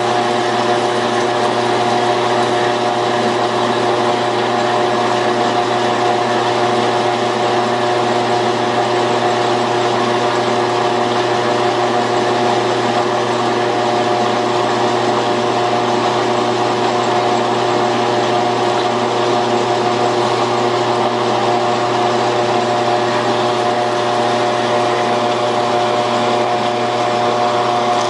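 Metal lathe running steadily with a constant motor hum while a cone-cutting attachment takes a light finishing cut on spinning aluminium round stock.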